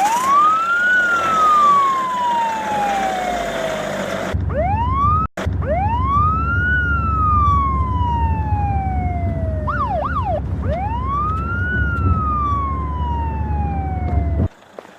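Police siren sound effect wailing: each cycle rises quickly in pitch then falls slowly, about three cycles, with a short quick yelp around ten seconds in. A steady low rumble runs under it from about four seconds in, with a brief dropout soon after, and the sound cuts off suddenly just before the end.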